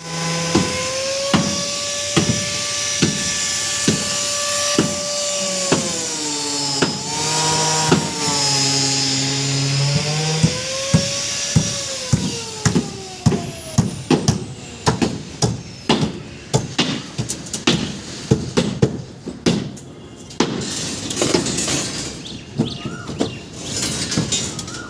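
Construction tools at work. A power tool runs with a steady whine that dips in pitch twice, over regular knocks about once a second. In the second half come rapid, repeated hammer-like blows, several a second.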